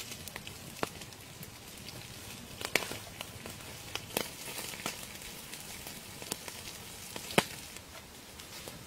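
Open wood fire crackling: a faint steady hiss with scattered sharp pops, one louder pop about three quarters of the way through.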